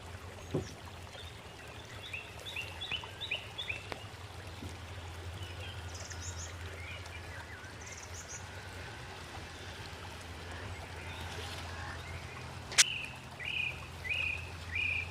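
Small birds chirping in short bursts, a cluster of quick chirps about three seconds in and three separate chirps near the end, over a steady low outdoor rumble. A single sharp click about 13 seconds in is the loudest sound.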